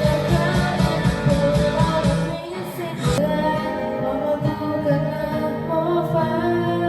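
A song with singing over guitar; the beat and bass drop out about two and a half seconds in, and a softer passage follows.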